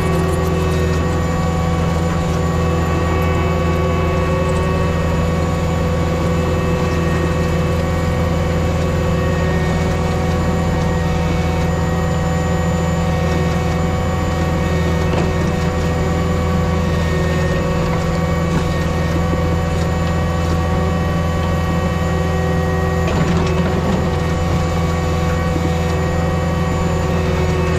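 Caterpillar skid steer's diesel engine running steadily under load while it pushes a GB124 grader blade across dirt, with steady whining tones over a deep, even hum.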